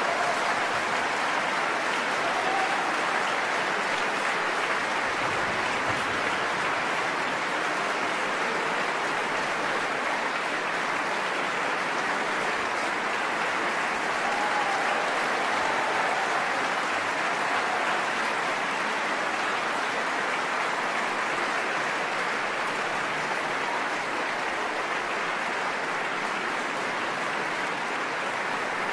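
Large concert-hall audience applauding steadily after a symphony performance has ended.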